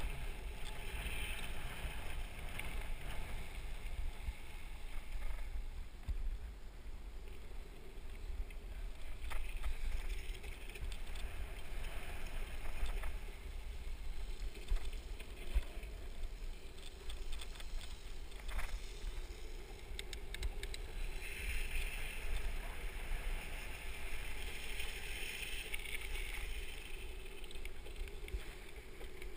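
Urethane wheels of a downhill board rolling fast on rough asphalt: a steady rumbling hiss, with an occasional faint click.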